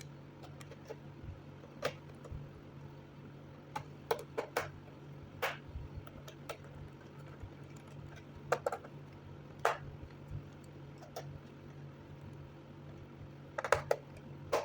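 Irregular clicks and taps from hands working on a laptop, some coming in quick clusters, over a steady low hum.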